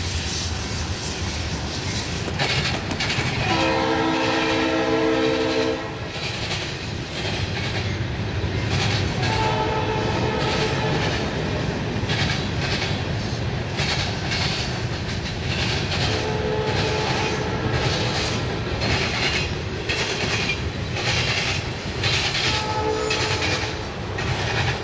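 Freight train rolling past, steady rumble with wheels clicking over the rail joints; a diesel locomotive's air horn sounds a chord four times, the first blast about two seconds long and the loudest, the later ones shorter.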